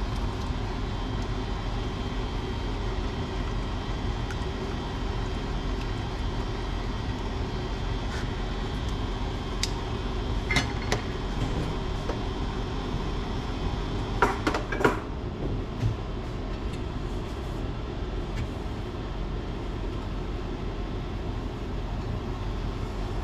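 Steady noise of a sauce simmering in a stainless steel frying pan on an induction cooktop. A few light clicks and knocks of a utensil against the pan come in a short cluster near the middle.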